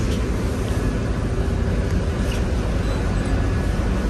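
Steady low rumble of outdoor background noise, heaviest in the bass, with no distinct events.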